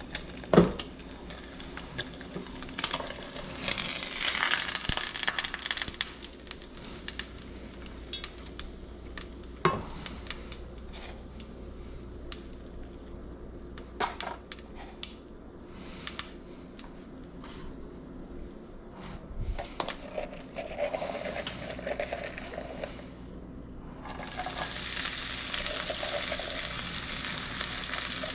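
Kitchen handling sounds: scattered knocks and clicks of utensils and cookware, the loudest a sharp knock right at the start, with a short hiss a few seconds in. About 24 s in, a steady sizzle of food frying in hot oil in a pan begins and keeps going.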